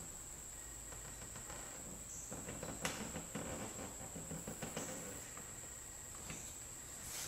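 A blade scoring a cut along a hardwood floorboard: faint scratching with small clicks, the sharpest about three seconds in, over a steady high whine.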